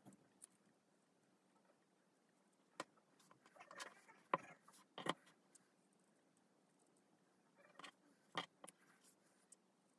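Small scissors snipping red felt pieces: a few faint, scattered snips and clicks, bunched a little before the middle and again near the end.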